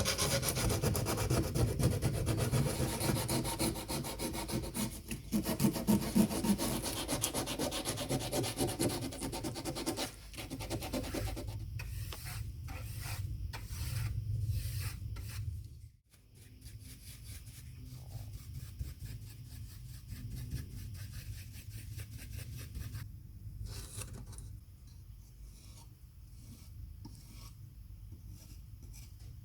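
Hand sanding or rubbing: continuous scraping at first, then distinct strokes about two a second, which turn abruptly fainter a little past the middle.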